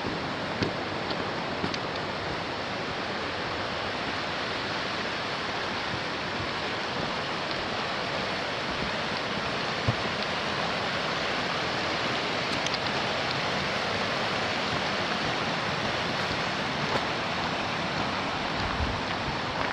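Whitewater rapids rushing over boulders: a steady, even wash of water noise. A few faint footfalls on the dirt trail tick through it now and then.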